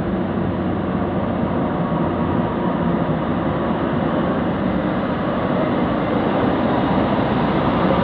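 Diesel engine of a Mitsubishi Fuso light truck running as it creeps past at close range, growing louder as it draws alongside near the end.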